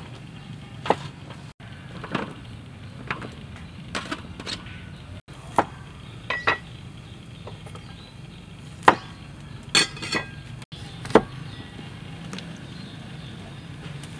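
A cleaver knocking on a wooden chopping board as limes are cut in half: scattered sharp strikes at an uneven pace, with a quick cluster of them about ten seconds in, over a low steady hum.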